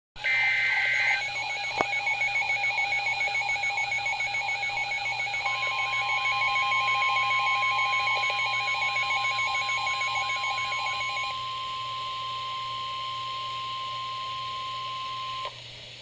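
Weather alert radio receiving a NOAA Weather Radio warning. It opens with about a second of screeching two-tone digital header data. Then the radio's own rapid warbling alarm beeps sound, and about five seconds in NOAA's steady warning alarm tone joins. The radio's beeping stops about eleven seconds in, and the tone cuts off abruptly near the end.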